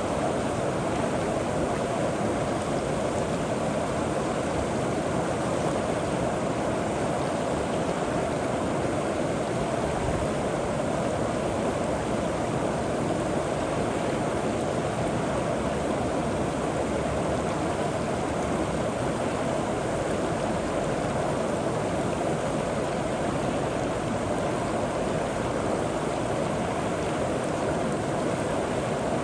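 River water flowing over rocks: a steady, unbroken rushing and gurgling.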